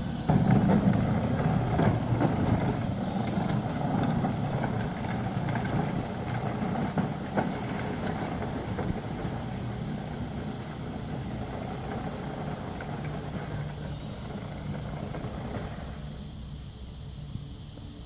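Children's electric ride-on ATV running, its motor and gearbox whirring steadily, getting gradually quieter as it drives away.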